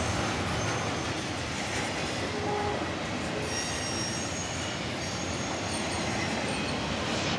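Double-stack container freight cars rolling past: a steady noise of wheels on rail, with a few brief, faint, high-pitched wheel squeals in the middle.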